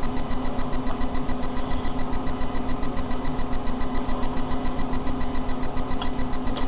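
A steady background hum with a fast, even pulse in its loudness. Two faint clicks come near the end.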